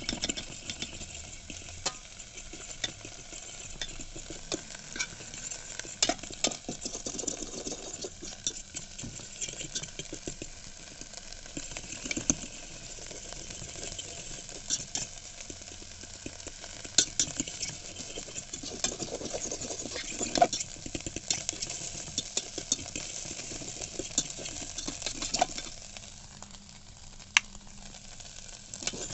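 Spoon stirring and scraping scrambled eggs cooking in an electric kettle, with sizzling and many sharp clicks of metal on the kettle's inner wall; it quietens for a few seconds near the end.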